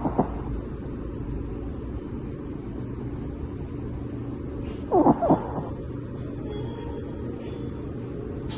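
Shih Tzu snoring in deep sleep: a pair of short, loud snorting snores right at the start and again about five seconds in, over a steady low rumble.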